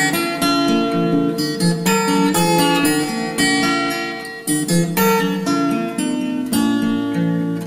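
Background music: acoustic guitar being strummed and picked in a steady rhythm.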